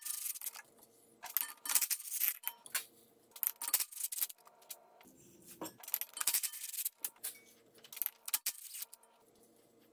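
Cordless impact tool running in short bursts to spin out the triple-square bolts of a CV axle's inner joint flange, with light metallic clinks from the socket and bolts between bursts.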